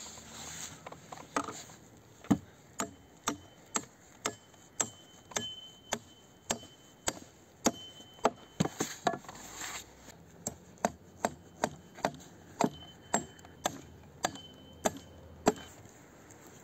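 Hatchet hewing a pine log, short chopping strokes about twice a second, each a sharp knock of steel biting into the wood.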